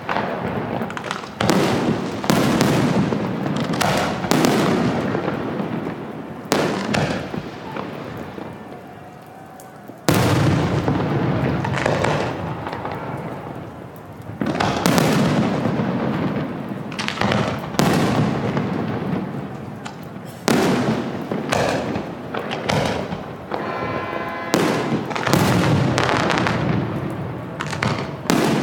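Fireworks display going off in the distance: sharp booming reports every few seconds, each trailing into a long rumbling echo, with a lull of a few seconds about a third of the way through.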